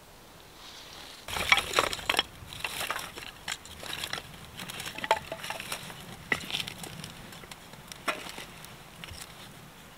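Dry sticks and kindling being snapped and handled by hand for a fire, an irregular run of sharp cracks and crackles that starts about a second in.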